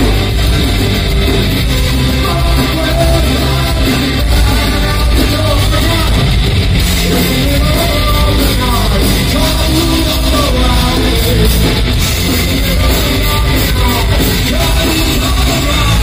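Loud live heavy rock music from a band on stage, with a vocalist singing and yelling over it.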